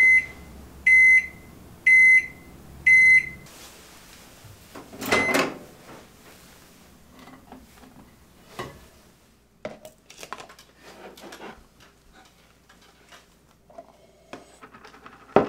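Microwave oven beeping four times, about a second apart, at the end of its cycle, with a low hum under the beeps that stops after the last one. Then a louder clunk about five seconds in and light knocks and clicks as a plastic food container is lifted out, ending with a sharp knock.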